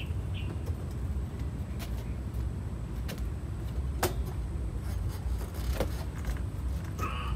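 A few sharp clicks from a Honda ADV 160 scooter's centre stand as a foot presses down on its lever, the loudest about four seconds in, over a steady low rumble.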